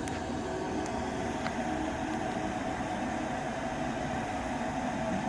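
Fire burning in a metal incinerator barrel: a steady rushing with a few faint, sharp crackles in the first second and a half.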